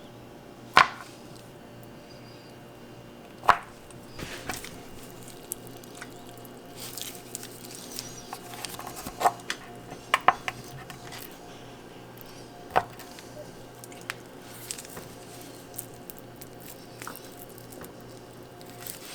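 Hand food preparation: scattered sharp taps and knocks with soft squishing in between, as raw sirloin steak is handled and threaded onto bamboo skewers.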